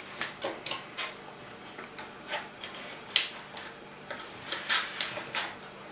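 Small plastic building bricks clicking and tapping as they are handled and pressed together on a wooden table: scattered, irregular clicks, a little louder about half a second and three seconds in.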